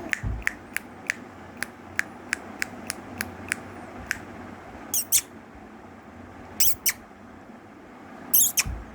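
Three bouts of short, sharp, high-pitched sneezes, the first two each a quick double, about a second and a half apart. Before them comes a run of light clicks, about three a second.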